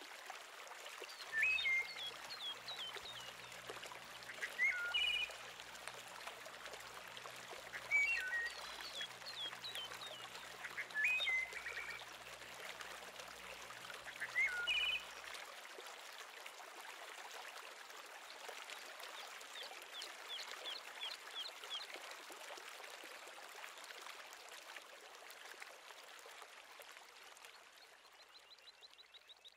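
Outdoor ambience with a steady hiss, and a bird giving short swooping calls about every three seconds for the first half, with thin, rapid, high-pitched twittering in between and later on. A faint low hum runs under the first half and stops about halfway through.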